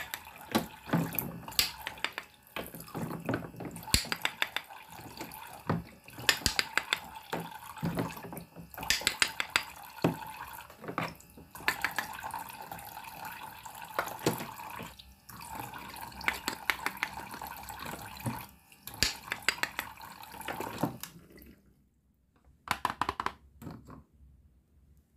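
Water running from a toy kitchen sink's faucet, with plastic toy food pieces clicking and clattering as they are handled. The running water stops near the end, leaving only a few light clicks.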